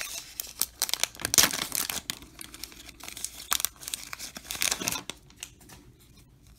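Foil wrapper of a baseball card pack being torn open and crinkled, a dense run of sharp crackles and rips that dies down to faint rustling after about five seconds.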